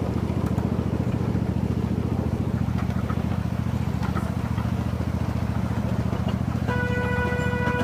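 Park ride train's engine running steadily, with a fast, even pulse. Near the end its horn starts a long, single-pitched blast.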